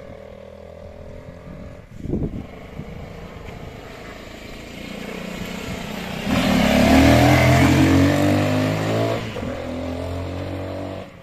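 Dirt bike engine running as the motorcycle rides past close by: faint at first, loud for a few seconds from about six seconds in, then dropping as it moves away.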